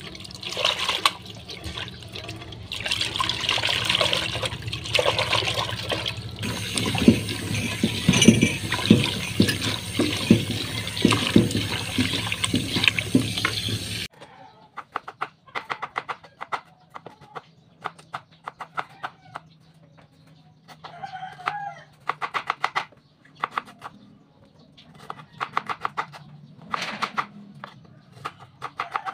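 Tap water running and splashing into a pot as leafy greens and sliced patola (sponge gourd) are rinsed, stopping suddenly about halfway through. Then a kitchen knife chops on a wooden cutting board in quick, uneven runs of strokes with short pauses between.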